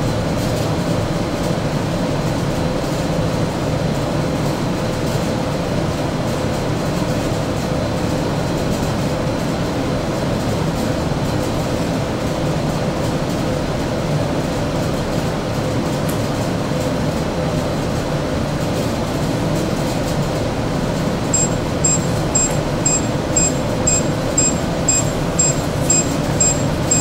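Manncorp TWS-850 reflow oven running with a steady fan hum. Near the end its alarm starts beeping, about three short high beeps a second, marking the end of the reflow stage and the start of the cool-down phase.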